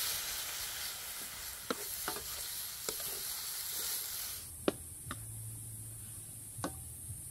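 Baby corn, mushrooms and chillies sizzling in a steel wok while being stir-fried, with a wooden spatula clicking and scraping against the pan every second or so. The sizzle cuts off suddenly about four and a half seconds in, leaving a few sharp spatula knocks.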